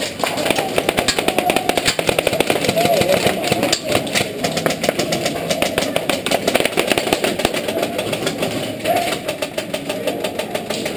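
Airsoft guns firing rapidly on full auto, a sustained stream of fast clicking shots, with voices in the background.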